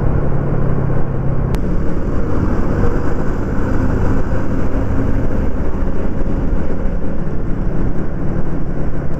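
Yamaha Lagenda 115ZR motorcycle cruising at a steady speed, its engine hum under a steady rush of wind on the microphone and road noise.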